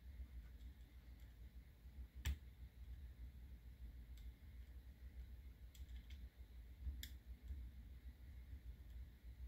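Faint small clicks and taps of a plastic pick working against the small plastic parts in a drone's gimbal bay: one sharp click about two seconds in and a few lighter ones around six to seven seconds, over a low steady hum.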